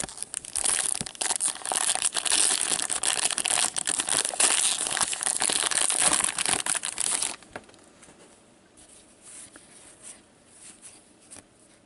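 Foil wrapper of a hockey card pack being torn open and crinkled by gloved hands: a dense crackling for about seven seconds that stops abruptly, then only faint rustles.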